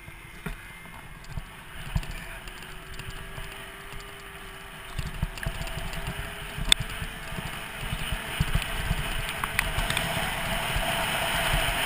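Arctic Cat snowmobile engine running as it tows a skier, its tone slowly rising in pitch as it gathers speed. Skis hiss over the snow, and this hiss, with the wind rush, grows louder in the last few seconds.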